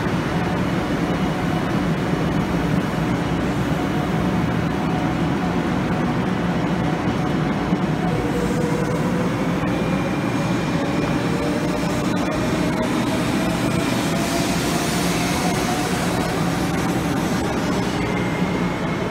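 500 Series Shinkansen pulling out of a station and gathering speed: a steady rumble of the cars rolling past, with a faint motor whine rising slowly in pitch in the second half.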